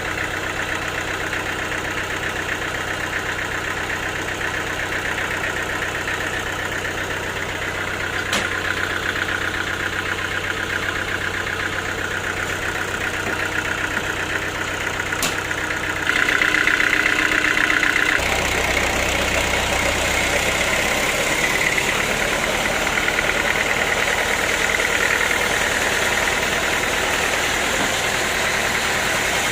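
Sawmill machinery running steadily: a low engine beat under a higher whine. About sixteen seconds in it grows louder, and a couple of seconds later the low beat changes and stays at the louder level.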